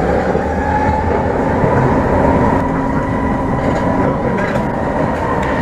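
Brussels metro train running, heard from inside the carriage: a steady rumble of wheels on rails under an electric whine that rises slowly in pitch, then holds steady as the train gets up to speed.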